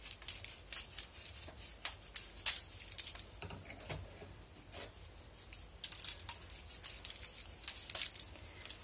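Salt being sprinkled by hand over boiled potato wedges on a parchment-lined baking tray: light, irregular ticking and crinkling of the paper.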